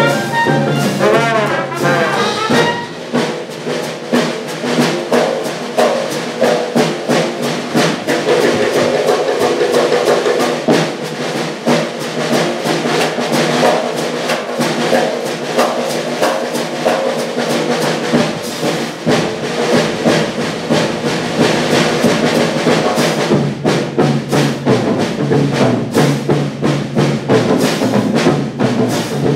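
Traditional New Orleans jazz band playing live: trumpet, trombone and clarinet in ensemble at first, then the horns drop out and the piano, string bass and drums carry the tune on a steady swing beat.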